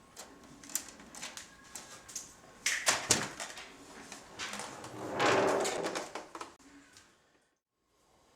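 Sharp clicks and knocks, then a longer scraping rustle, from hands working inside an opened Roland JD-800 synthesizer as its keyboard ribbon cable is hooked back up. The sound cuts to dead silence about a second before the end.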